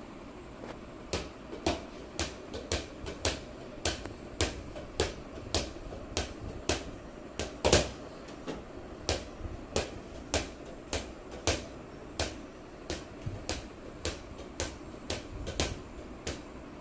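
A steady run of sharp slaps on a hard floor, about two a second, starting about a second in, from a child's play such as bouncing a ball or jumping; one slap near the middle is louder than the rest.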